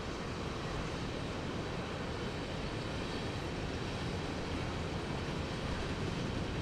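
Steady rumbling noise of a passing train.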